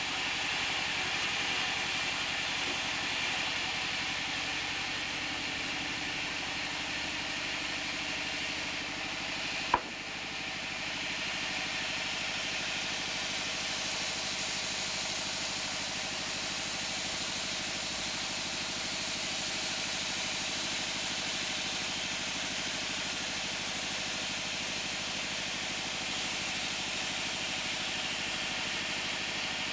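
Band sawmill running steadily, with a single sharp knock about ten seconds in.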